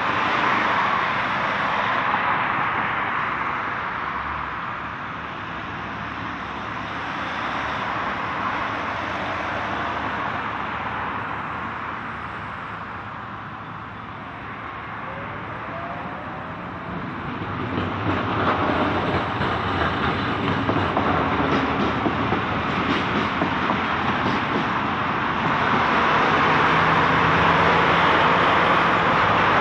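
Continuous street traffic noise, a steady wash of passing vehicles that eases off around the middle and builds louder again in the second half.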